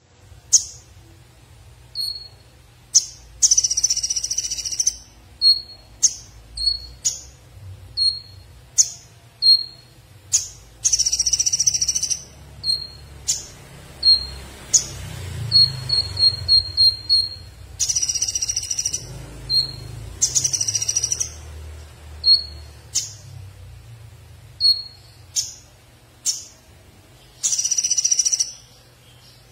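Male Van Hasselt's sunbird (the 'konin' of Indonesian bird-keepers) singing in its cage: sharp high notes that drop in pitch, repeated about once a second, broken by several high buzzing trills lasting a second or two. A quick run of chips comes about halfway through.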